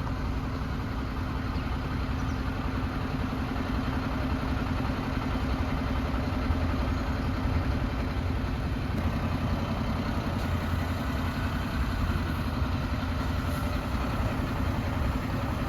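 A vehicle engine running steadily with a low hum and some rattle. It starts and stops abruptly at cuts.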